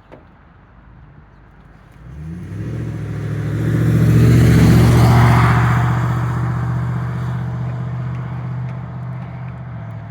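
A motor vehicle driving past close by: its engine comes in about two seconds in, swells with tyre noise to a peak around the middle, then slowly fades.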